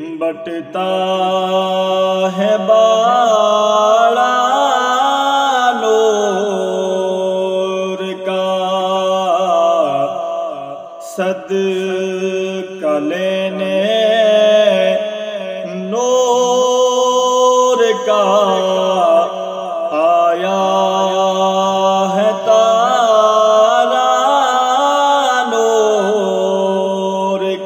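A man's solo voice sings an Urdu naat in long, ornamented phrases that bend up and down in pitch. A steady low drone runs underneath, and there are short breaths between the phrases.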